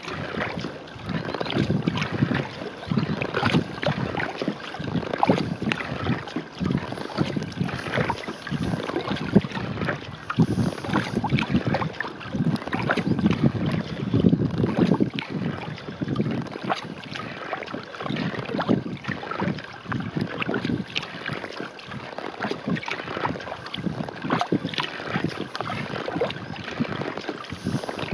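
Wooden paddle strokes in calm lake water from a skin-on-frame kayak: the blades dip and pull on alternate sides with small splashes and drips, over a steady wash of water along the hull.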